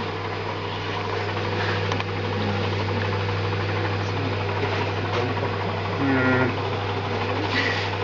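Microwave oven running with a steady low hum, heating a plasma experiment under an upturned glass.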